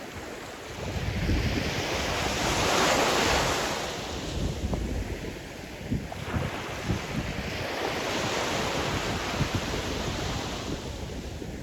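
Sea surf: a wave swells about a second in, breaks and washes up, peaking around three seconds, then a second long wash follows. Wind buffets the microphone with a low, gusty rumble throughout.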